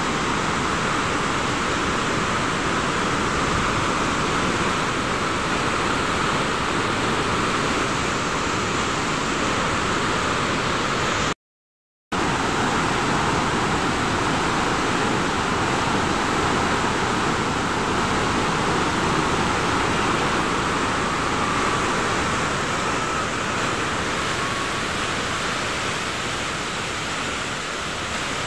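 Large waterfall in heavy flow: a steady, loud rush of water pouring over rocks. It cuts out to complete silence for under a second about eleven seconds in, then carries on as before.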